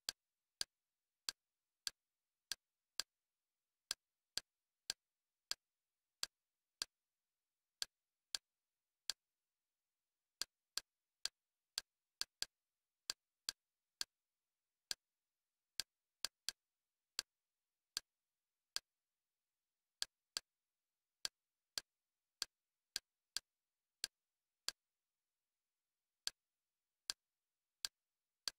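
Kodi menu navigation sounds: short sharp clicks, one for each move of the selection, at irregular intervals of about half a second to a second and sometimes in quick pairs, with dead silence between.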